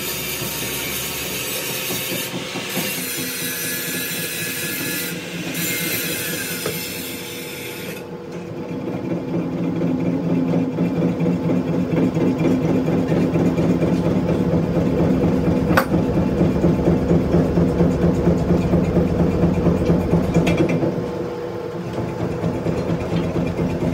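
Metal lathe with a four-jaw chuck running, its tool turning a steel part: a bright hiss of cutting for about the first eight seconds, then a steady, fast rhythmic clatter over a hum.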